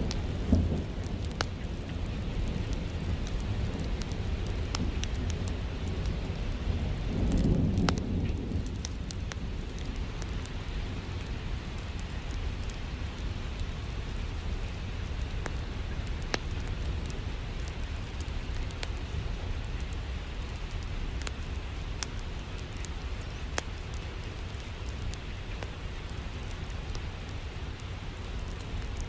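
Steady rain with scattered sharp clicks throughout, and a low rumble of thunder that swells about seven seconds in.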